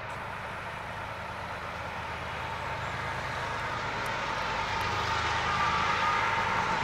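Two GE C45ACCTE diesel-electric freight locomotives approaching, their engines a steady low drone growing steadily louder as they near. A thin high whine comes in about halfway through.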